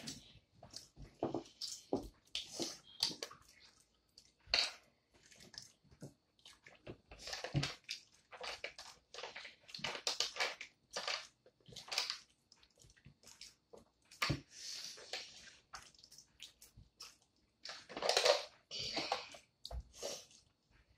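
Wet boiled peanut shells being cracked open by hand, with the brine sucked from them and the nuts chewed, in irregular short crackly bursts.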